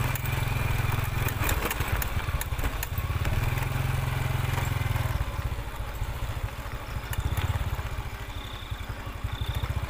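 A small engine running steadily with a low, even beat, with a few sharp clicks in the first few seconds.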